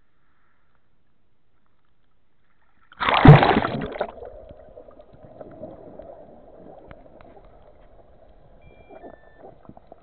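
Sudden splash about three seconds in as the camera plunges below the surface, then muffled underwater water noise and gurgling with faint scattered clicks.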